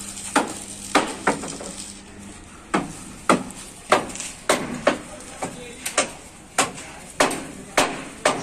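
A hammer striking repeatedly, blows about every half second with a gap of a second or so near the start, each one ringing briefly.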